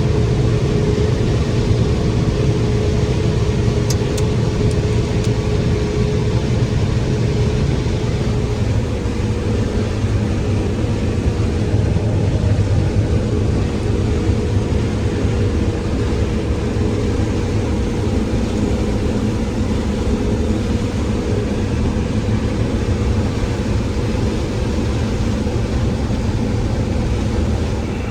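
Heavy farm-machinery engine running steadily with a low drone; a higher steady tone in it fades away after about eight seconds.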